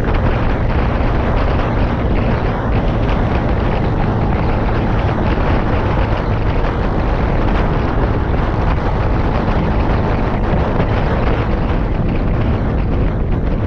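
Steady wind rush over the microphone while riding a Honda PCX 125 scooter at speed, its single-cylinder engine running underneath without a break.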